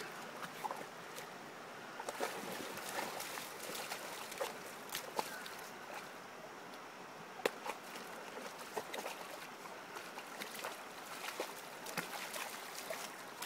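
A dog wading in a shallow river, its legs stirring and splashing the water in irregular small splashes over the steady rush of the stream, with a sharper splash about seven and a half seconds in.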